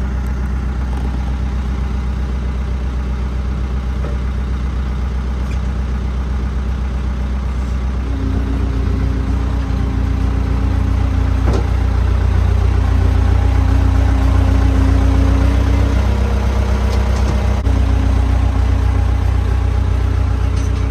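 An engine running steadily. About eight seconds in it gets louder and a higher steady hum joins it.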